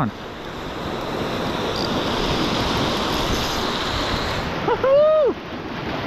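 Lake surf breaking and washing over a rocky shore, with wind buffeting the microphone; the wash swells during the first second and then holds steady.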